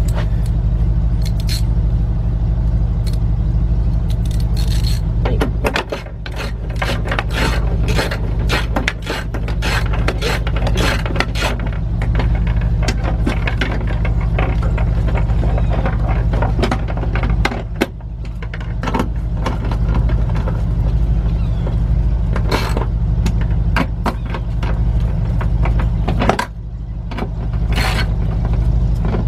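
Rapid clicks, knocks and scrapes of a 10 mm wrench and socket tightening the bolts that hold a window regulator inside a car door, over a steady low hum.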